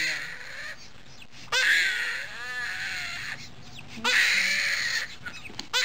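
Newborn baby crying hard in repeated bouts of about a second and a half, with quieter catch-breath gaps between; one cry wavers in pitch. The baby is crying in pain at being given vaccination injections in the thigh.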